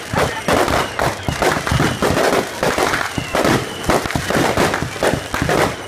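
Aerial fireworks going off in a rapid, unbroken string of bangs and crackles, several to the second.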